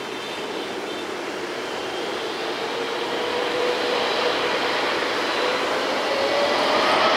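Boeing 777F's GE90-110B turbofan engines spooling up for takeoff: a steady jet rumble that grows louder throughout, with a whine that slowly rises in pitch.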